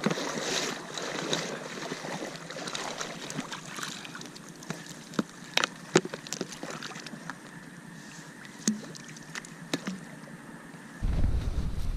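Water sloshing and splashing in marsh shallows, with a few sharp clicks near the middle. Near the end a loud low rumble starts abruptly.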